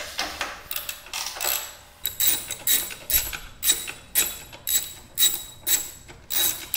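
Socket ratchet clicking in short bursts as it backs out the long bolt holding a motorcycle race rail. The bursts are uneven at first, then settle into a steady rhythm of about two a second.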